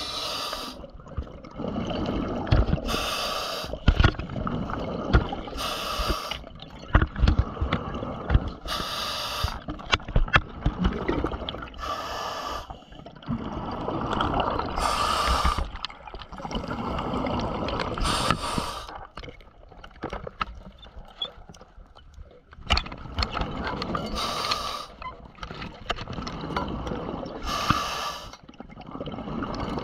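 Scuba diver breathing through a regulator underwater: a hiss and rush of bubbles about every three seconds, with a longer pause about two-thirds of the way through. Scattered clicking and crackling runs underneath.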